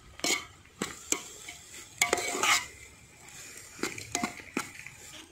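A long metal spoon scraping and clinking against a metal pot as chopped onions are stirred while frying in oil, with a faint sizzle between the strokes. The strokes are irregular, several clustered around two seconds in and again near four seconds.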